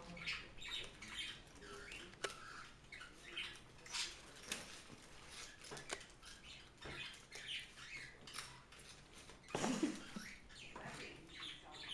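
Caged parakeets chirping and chattering, with a paper food wrapper crinkling and rustling in hand. A louder burst of noise comes about ten seconds in.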